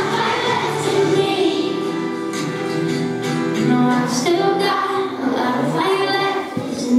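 A pop song playing, with a female lead voice and children's voices singing the melody over a backing track.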